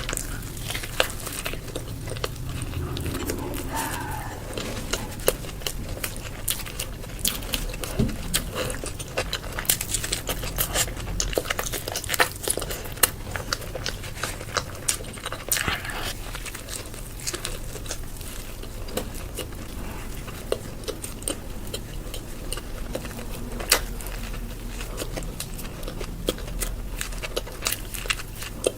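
Close-miked eating: biting and chewing food, with frequent irregular sharp crunchy clicks and crackles.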